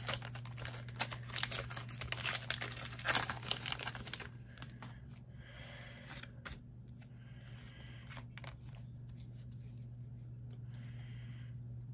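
Foil wrapper of a Pokémon booster pack being torn open and crinkled, a dense run of crackles for about four seconds. After that only faint, scattered rustles remain over a steady low hum.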